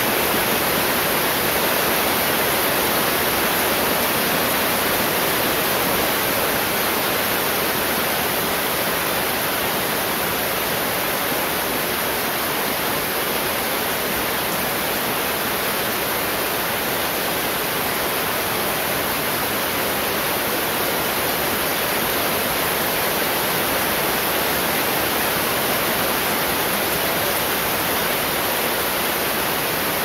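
Heavy rain pouring steadily onto a garden of broad banana and cassava leaves, an even rushing hiss with no thunder claps.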